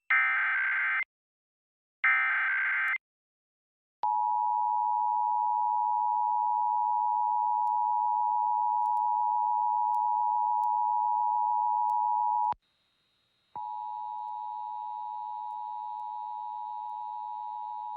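Emergency Alert System test tones. First, two one-second bursts of screeching digital data (the EAS header) a second apart. Then the steady two-tone attention signal for about eight seconds, which breaks off and comes back about a second later at a lower level.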